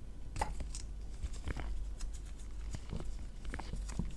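Scattered light clicks and rustles of paper tape being handled and pressed onto an 18650 lithium battery, over a steady low hum.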